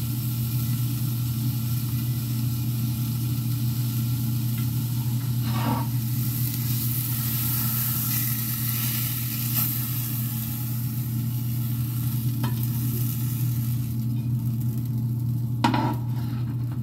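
Egg-and-breadcrumb-coated chicken pieces sizzling as they fry in a pan, with a few light taps of a utensil against the pan, over a steady low hum.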